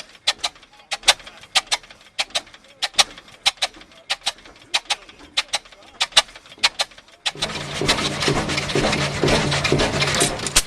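Old stationary engine firing with sharp pops at an uneven, slow beat, often in pairs. About seven seconds in, a much louder steady running engine or machine with a low hum joins it, with voices around.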